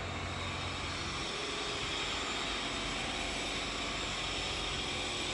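Steady running noise of a 5-gallon barrel filling and capping machine line: a low motor hum under an even hiss.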